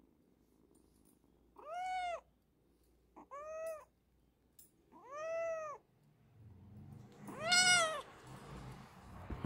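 Young orange-and-white kitten meowing four times, each call rising and then falling in pitch, the last one the loudest.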